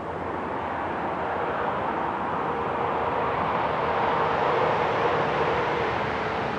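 Distant engine rumble with a faint steady hum, swelling to a peak about two thirds of the way through and then easing off a little.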